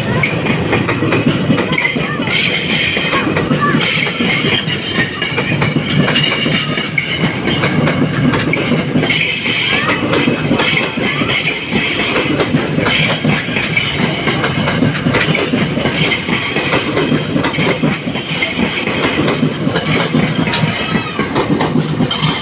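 A train passing close by on the station tracks, its wheels clattering rapidly and continuously over the rail joints, with high squealing tones over the clatter.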